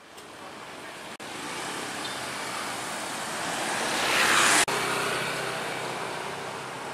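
Road traffic on a street: a steady hiss of passing vehicles, swelling as one passes close about four seconds in, then cutting off abruptly.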